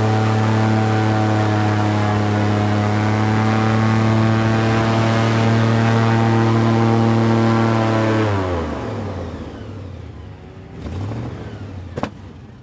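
Airboat engine and propeller running loud and steady at speed, then throttled back about eight seconds in, the pitch falling as the boat slows. A single sharp click near the end.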